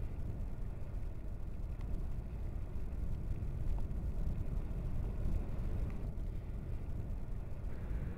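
Marum volcano's lava lake churning, a steady low rumble with no distinct bursts.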